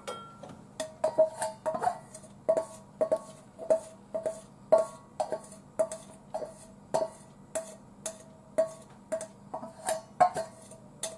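Stainless steel mixing bowl being knocked over and over, a short ringing clink about twice a second, as the last of the batter is tapped out into the frying pan.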